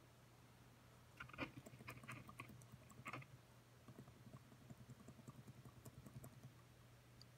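Keys pressed on a Lenovo ThinkPad T430 laptop keyboard: a handful of sharper key clicks, then a run of lighter, quicker taps.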